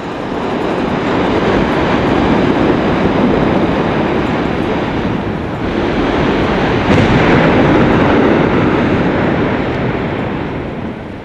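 Mount Yasur's vent blowing out gas and ash with a continuous rushing noise that gets louder about seven seconds in.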